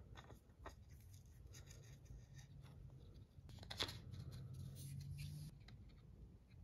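Faint clicks and light rubbing of small plastic gearbox parts and nylon bushings being handled and fitted by hand, with one sharper click a little before the halfway point.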